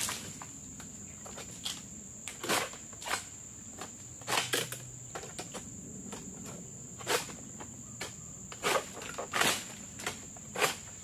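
About seven short, irregular strokes of a long-pole egrek sickle cutting and scraping at oil palm frond bases during pruning, over a steady high-pitched insect drone.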